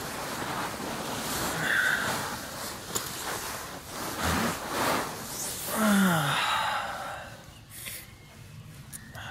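Fabric rustling of a hammock and sleeping bag as a person shifts and settles in, then a long sigh falling in pitch about six seconds in.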